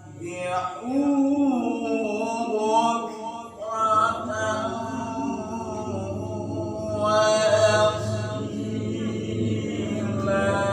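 A child's unaccompanied, melodic Qur'an recitation (tilawah) with long, drawn-out, ornamented notes, sung in maqam Bayati. There is a short break for breath about three and a half seconds in.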